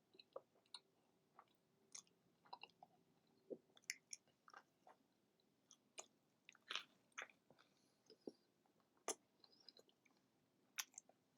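Faint chewing of a bacon cheeseburger: short wet mouth clicks and smacks at irregular intervals.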